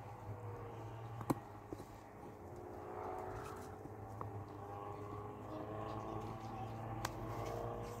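A distant engine running steadily, its hum growing louder from a few seconds in, with two sharp knocks of stones being set down.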